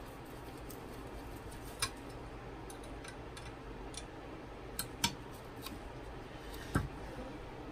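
Small screwdriver tightening the screws that clamp a new FEP film into the metal frame of a resin printer's vat, with four sharp clicks of the tool spread through it.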